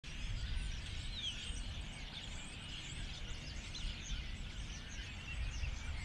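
Flock of common starlings calling: many short overlapping chirps and whistles, with a steady low rumble underneath.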